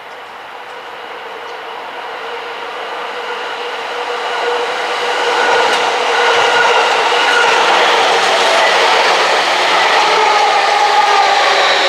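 JR East Yamanote Line electric commuter train coming in, its running noise growing steadily louder through the first half and then holding loud. Steady whining tones from the wheels and motors run over the rumble.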